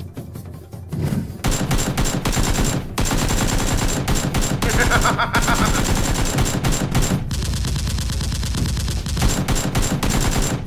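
Rapid automatic gunfire in long bursts of many shots, starting about a second and a half in. It is heard as the sound of an exchange of fire between blasters.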